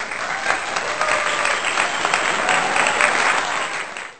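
Crowd applauding with many hand claps, starting and cutting off abruptly.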